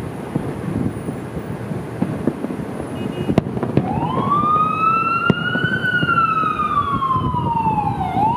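Fireworks going off, with a few sharp bangs over a steady low rumble. From about four seconds in, an emergency vehicle siren wails: it rises, falls slowly over several seconds, and starts rising again near the end.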